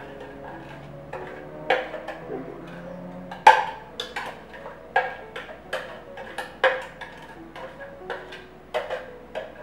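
Kitchen utensils and dishes knocking and clinking in an uneven series of sharp taps, about two a second, over soft background music.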